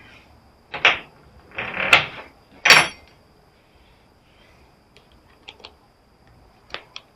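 Metal parts of an old welder being worked loose by hand: three loud scraping, clattering bursts in the first three seconds, then a few light clicks near the end.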